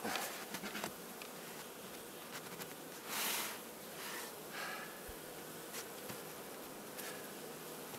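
Honeybee colony humming steadily at an open wooden hive; the bees are calm. Several light wooden knocks in the first second as hive parts are set back in place, and a short rustle about three seconds in.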